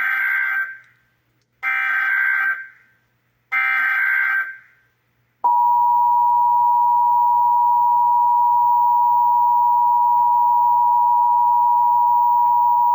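Emergency Alert System Required Monthly Test tones: three SAME digital header bursts, each about a second long, then the steady two-tone EAS attention signal (853 Hz and 960 Hz) starting about five seconds in.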